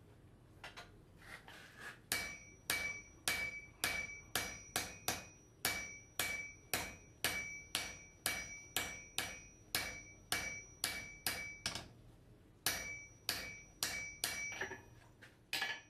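Blacksmith's hammer striking metal on an anvil in a steady rhythm of about two blows a second, each blow leaving a clear high ring. There is a short pause about three-quarters of the way through.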